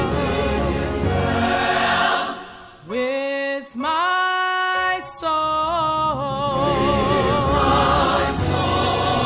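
Gospel song with voices singing; about three seconds in, after a short break, the voices slide up into a long held chord, then the singing carries on.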